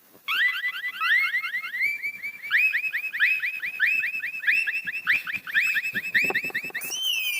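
Rapid electronic chirping warble, about five quick chirps a second that step up in pitch partway through. Near the end the chirps merge into one tone that starts sliding downward.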